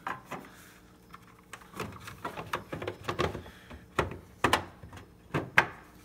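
Irregular clicks and knocks of plastic being handled as the headlight's waterproof low-beam cover is pushed into its hole in the back of the housing and given a twist. The sharpest knock comes near the end.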